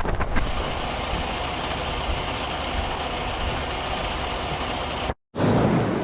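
Steady motor vehicle engine and road noise. It drops out to silence for a moment about five seconds in, then resumes with a different sound.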